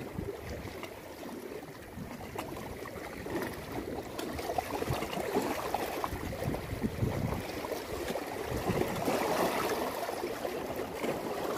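Small sea waves lapping and splashing against the rocks at the water's edge, an uneven wash that grows louder near the end.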